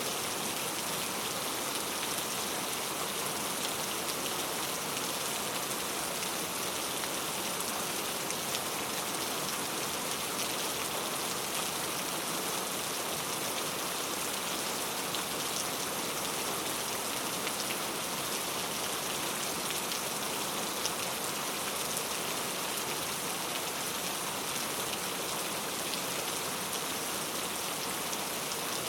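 Rain falling steadily, an even hiss with scattered drop ticks.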